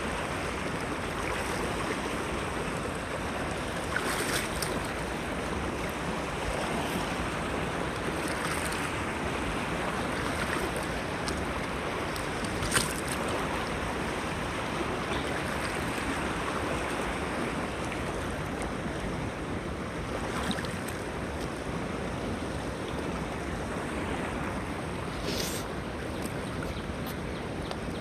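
Waterfall: a steady, even rush of falling water, with a sharp click about 13 seconds in.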